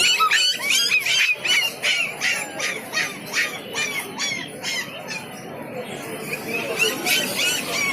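Birds squawking in a fast run of short, sharp calls, about three a second, that stops about five seconds in and starts again near the end.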